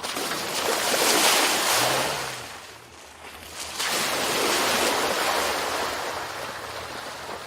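A 2018 Dacia Duster 4x4 driving off-road: two long swells of rushing noise, the first fading about two and a half seconds in and the second rising about a second later, with a faint engine hum underneath.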